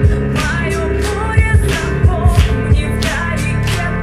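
Live band music: a song played on keyboards, bass and drums with regular drum hits, and a wavering melodic line that sounds like wordless singing.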